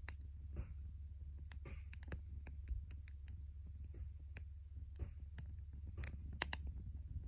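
Wood fire crackling: irregular sharp pops and snaps from burning wooden boards, loudest a little after six seconds in, over a steady low rumble.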